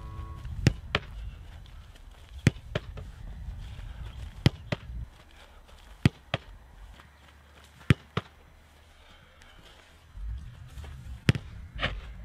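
A football being struck and caught by a goalkeeper's gloves: sharp thuds coming in close pairs, a fresh pair about every two seconds, as ball after ball is sent in and caught.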